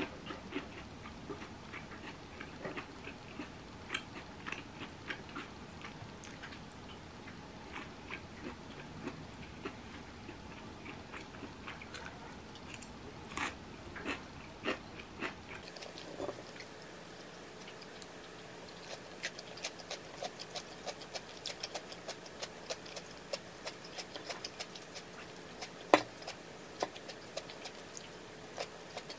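Eating sounds: a metal fork clicking and scraping against a ceramic bowl, with chewing in between. About sixteen seconds in the background changes and a quicker run of small, even ticks begins, with one sharp clack near the end.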